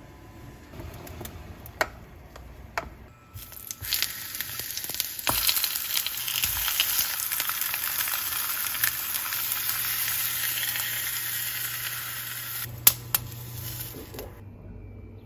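Food sizzling in a hot frying pan. The sizzle starts abruptly a few seconds in and cuts off shortly before the end, with a few sharp clicks before it and two close together near its end.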